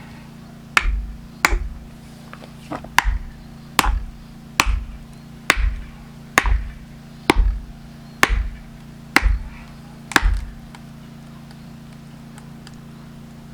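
About a dozen evenly paced, sharp blows, one roughly every second, as a felling wedge is driven into a larch log with the head of an axe or maul. The strikes stop near ten seconds in.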